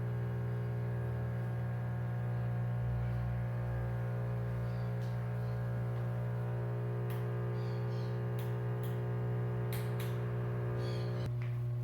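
Energized water inlet solenoid valve of a Brastemp BWL11 washing machine, buzzing with a steady mains hum during the self-test. Part of the buzz drops away shortly before the end.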